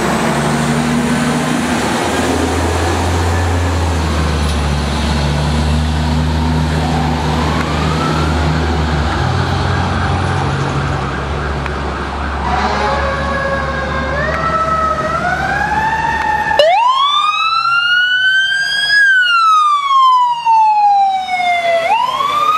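Fire engine's engine running loudly as it pulls past. About halfway through, an ambulance's electronic siren starts up in short rising steps, then sounds a loud wail that rises, falls slowly and starts to rise again.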